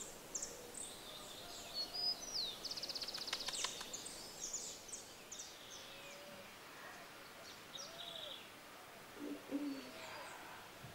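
Birds chirping and calling, faintly, with short high chirps and whistled glides and a fast trill about three seconds in.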